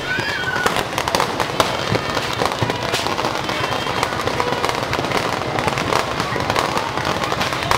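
Ground fireworks crackling and popping rapidly and without a break while spraying sparks, with voices heard over them.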